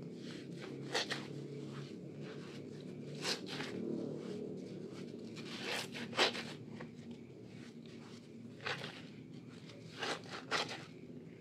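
Foam sponges soaked with lathered soap being squeezed and kneaded by hand in a basin of suds: soft wet squishing punctuated by about seven sharp, short squelches as lather is forced out.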